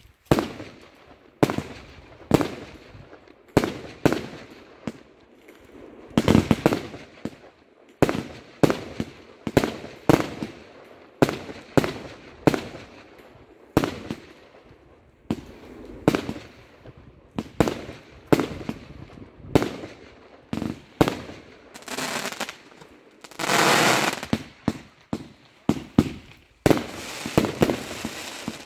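Aerial fireworks going off, a string of sharp bangs from bursting shells, about one or two a second. Near the end the bangs give way to a dense crackle for about a second, then steady crackling.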